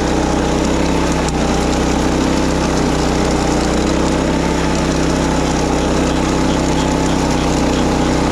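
Wing mower's small petrol engine running steadily at constant speed, with no change in pitch or load.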